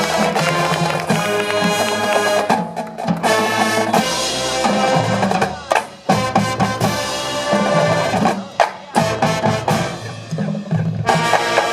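Marching band playing on the field: sustained brass chords over a drumline of snare and bass drums, with a few short breaks and sharp hits.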